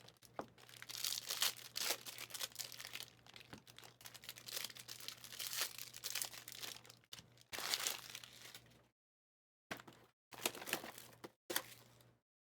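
Plastic wrapping on trading-card boxes and packs being torn open and crumpled, in irregular crinkling bursts over a faint steady hum. The sound cuts out to dead silence a few times near the end.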